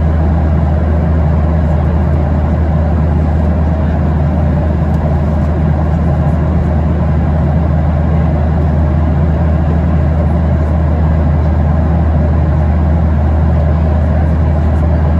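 Steady low drone inside the cabin of a Boeing 737-800 in cruise: engine and airflow noise with no change in level.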